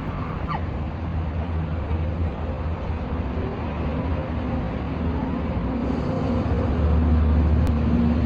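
Street traffic noise: a motor vehicle's engine running with a steady low rumble and hum, growing a little louder in the last couple of seconds.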